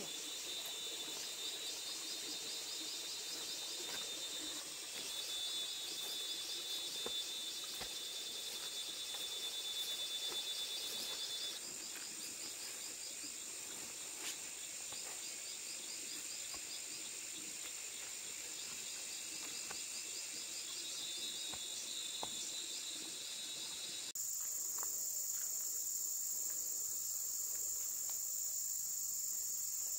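Insects chirring: steady high-pitched trilling with rows of rapid pulses. The sound changes abruptly about 24 seconds in, to a brighter, higher hiss.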